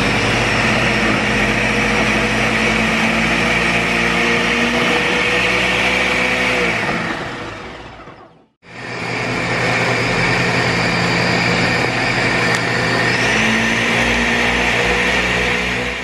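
Countertop blender with a stacked blade grinding dry peanuts for homemade peanut butter, the motor running at full speed under a crumbly load that has not yet turned to paste. About halfway through it spins down and stops, then starts again almost at once and runs on steadily.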